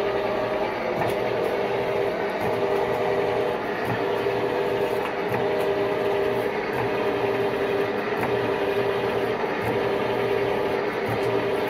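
Metal lathe running steadily while turning a large round backplate blank for a four-jaw chuck: a steady gear whine over the even noise of the spindle and the cut.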